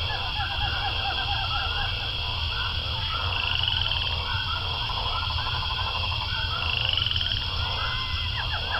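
Nature-soundtrack ambience: a dense chorus of frogs calling over and over, with a steady high trilling above it and a low hum beneath.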